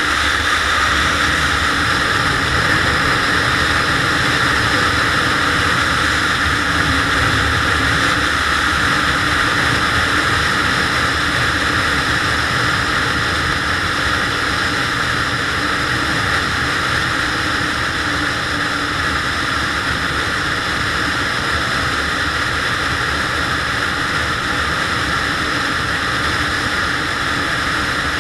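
Steady rush of wind on the microphone and road noise from a SYM Joymax GTS 250 Evo maxi-scooter cruising at a constant speed, with the low hum of its single-cylinder engine underneath.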